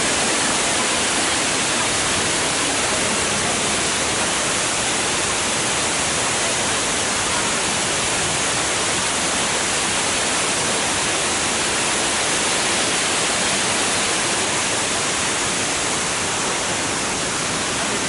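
Shiraito Falls, a wide curtain of many thin streams of water spilling over a cliff into a pool, making a steady, unbroken rush of falling water.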